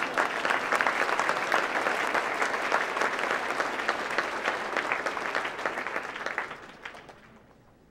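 Audience applauding, a dense clatter of many hands clapping that dies away about a second before the end.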